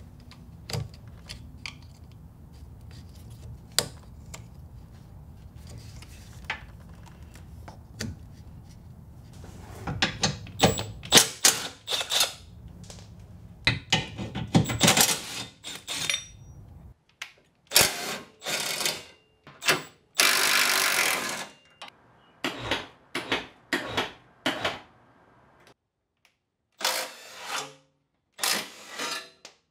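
Workshop teardown work on a car: clicks and knocks of parts being handled over a steady low hum. Then a string of short bursts from a cordless Milwaukee Fuel power tool driving bolts, with one longer run about twenty seconds in.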